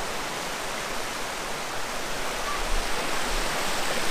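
Creek water rushing steadily over small cascades and rock ledges, with a couple of brief low bumps about two and three seconds in.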